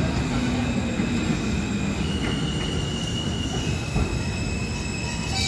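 R160 subway train running along the station track: a steady low rumble of wheels on rail with a high-pitched wheel squeal on top.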